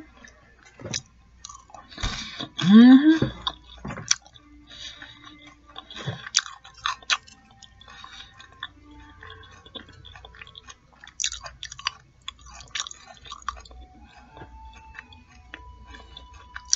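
Close-miked chewing and crunching of fried fish nuggets and fries, in many small irregular crunches and wet mouth clicks. A short hummed 'mm' comes about two to three seconds in.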